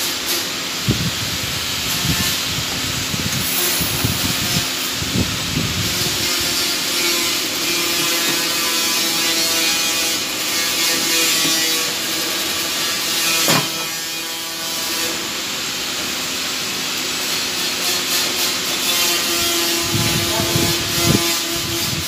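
Small power tool running steadily against metal: a continuous grinding, rubbing noise over a steady motor whine, with a few knocks and one sharp click about two-thirds of the way through.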